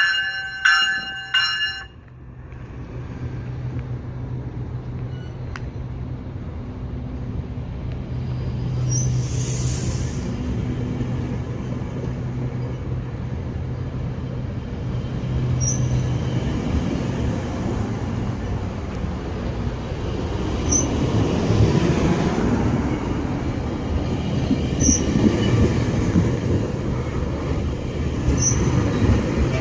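GO Transit MP40PH-3C diesel locomotive departing: its bell rings in steady strokes and stops about two seconds in. Then comes the locomotive's steady low engine hum as the train pulls away. The rumble of the wheels on the rails grows louder through the second half.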